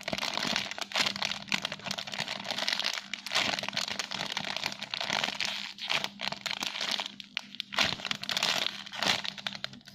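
Continuous crinkling and crackling as a foam squishy toy is squeezed and handled close to the microphone, with a faint steady hum underneath.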